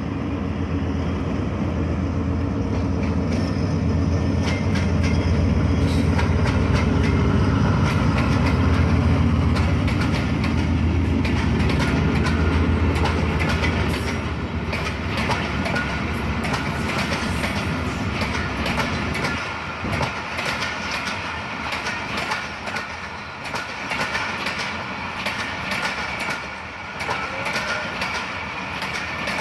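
A Pakistan Railways ZCU-30 diesel-electric locomotive runs past close by with a heavy, low engine rumble. For the second half its passenger coaches roll by with a steady clickety-clack of wheels over the rail joints, fading slightly.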